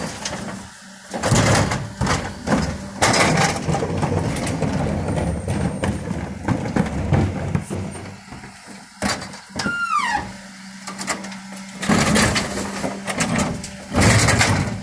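Refuse truck with a Geesinknorba GPM IV body and Combi-split bin lifters running, with a steady hum from its engine and hydraulics. Wheelie bins are lifted and tipped, with loud clattering and banging at several points. There is a brief falling squeal about ten seconds in.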